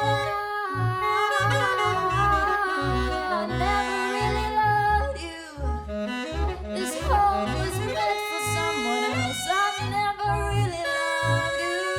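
Small jazz group playing: plucked double bass notes in an even pulse under alto saxophone and trombone lines, with a voice singing.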